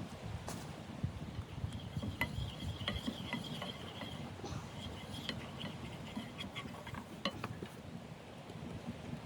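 Light metallic clinks and taps over a steady low rumble of wind, with a faint thin high tone running through the middle few seconds.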